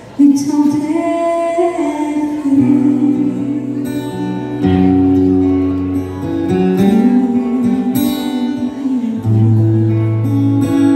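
A country song performed live: a woman singing into a microphone with guitar accompaniment.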